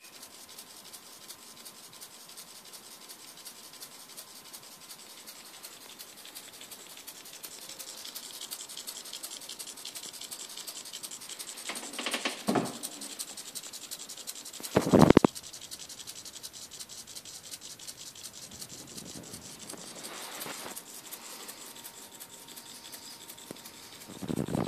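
Small hobby servos sweeping a laser rapidly back and forth: a fast, steady ticking chatter of the servo motors and gears, with louder short scraping bursts about twelve and fifteen seconds in.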